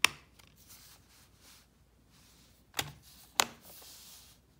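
Plastic clicks from handling a Blu-ray SteelBook case: a sharp click as a disc is pressed on its centre hub, then, a little under three seconds in, two clicks half a second apart as the case is shut, followed by a brief rubbing of hands on the case.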